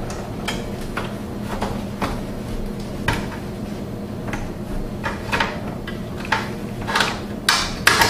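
Irregular clicks and knocks of gloved hands handling flexible metal conduit and working at a plastic timer enclosure, the sharpest knocks near the end, over a low steady hum.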